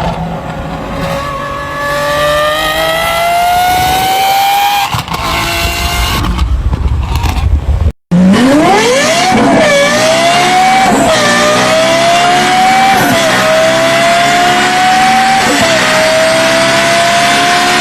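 High-revving supercar engines accelerating hard. The first climbs steadily in pitch. After a hard cut, a second car pulls through the gears, its pitch rising and then dropping sharply at four upshifts.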